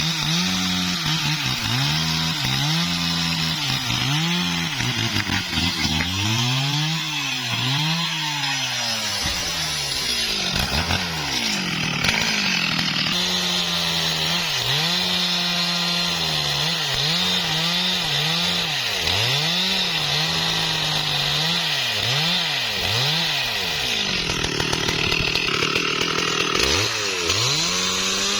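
STIHL MS 382 two-stroke chainsaw cutting into a tree trunk at high revs. The engine pitch dips and recovers about once a second as the chain bites under load.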